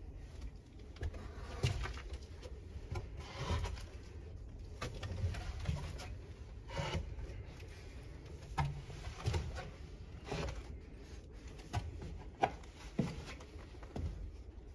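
Footsteps going slowly down a steep wooden staircase: irregular thuds and knocks on the treads, about one a second.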